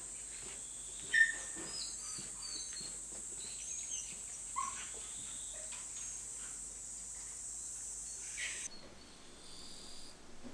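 Steady high insect drone with scattered bird chirps and a few light knocks. The drone cuts off suddenly near the end, leaving a quieter background.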